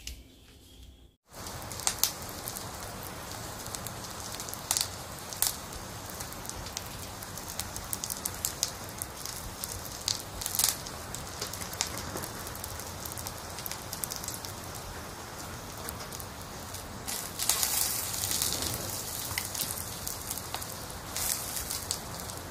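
Wood fire crackling: a steady hiss with irregular sharp pops and snaps, starting about a second in.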